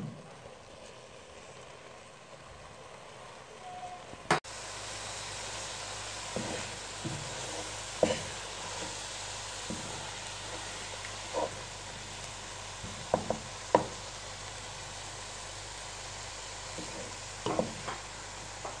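Onion-and-egg bastilla filling sizzling in a pot as a wooden spatula stirs it, with a few short knocks and scrapes of the spatula against the pot. The sizzle steps up louder about four seconds in.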